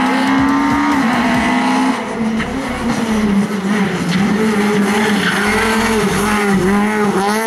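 Rally car engine held at high revs. Its note steps down twice in the first two seconds, then wavers with several brief dips.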